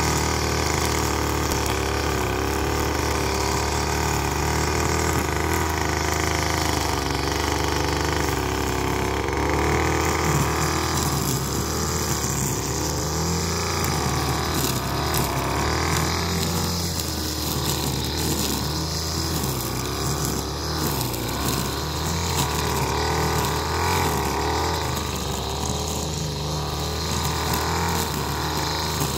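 Gas-powered string trimmer running at cutting speed, its engine pitch wavering up and down as the spinning line cuts through roadside grass and weeds.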